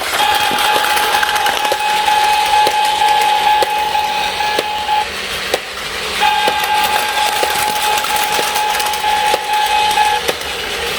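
Plarail battery-powered toy train running on plastic track: a steady even-pitched motor whine with regular clicks over the track, breaking off for about a second midway before starting again.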